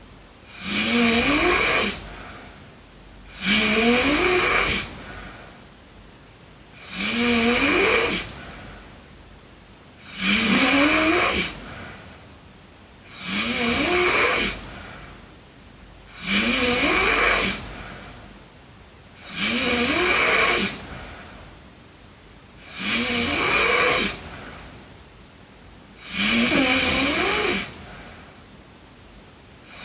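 A sleeping girl snoring steadily, one snore about every three and a half seconds, each rising in pitch as it goes.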